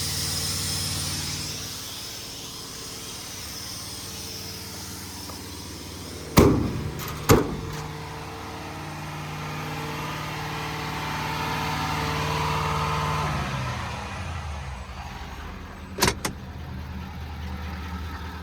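Ford F550's 6.7-litre Power Stroke V8 diesel idling steadily; about thirteen seconds in its note steps down lower. Sharp clunks cut across it twice, about six and seven seconds in, and twice more near the end.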